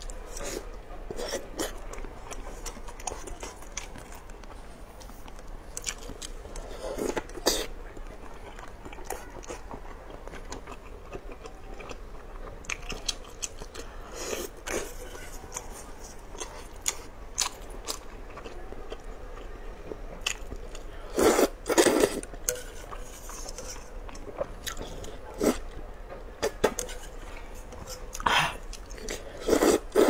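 Close-miked eating of potato starch noodles in spicy broth: wet chewing and mouth clicks, with louder slurps of noodles about two-thirds of the way through and again near the end.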